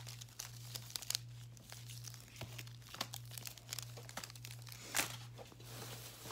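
Plastic candy wrappers and a plastic bag crinkling and crackling as they are handled and sorted, with a louder rustle about five seconds in. A steady low hum runs underneath.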